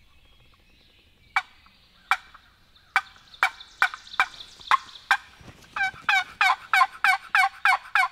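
Hand-held turkey call worked to imitate a hen. First comes a string of sharp, single clucks at uneven spacing. Then, about six seconds in, a steady run of yelps follows at about three a second.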